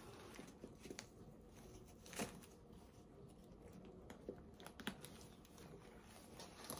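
A few faint clicks of a metal strap clip against a leather handbag's hardware as the strap is fastened, the loudest about two seconds in, over soft handling rustle.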